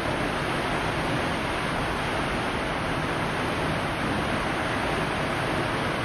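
Steady rushing of seawater churned up in a moving ship's wake, mixed with wind, with no pauses or changes.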